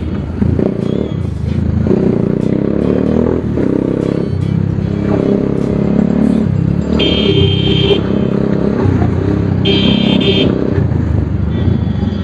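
Bajaj Pulsar 220's single-cylinder engine through an aftermarket SC Project exhaust, running on the move with its note rising and falling as the throttle opens and closes, and popping and crackling off throttle. A high tone sounds twice, about a second each time.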